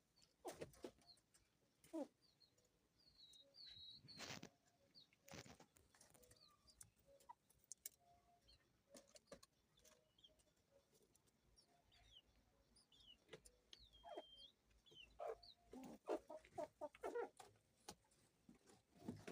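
Faint clucking of chickens, with scattered short high chirps, a few clicks and knocks, and a quick run of clucks near the end.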